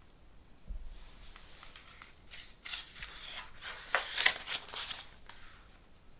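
Paper pages of a picture book being handled and turned: faint rustling and swishes, busiest a little past the middle, with a soft bump about a second in.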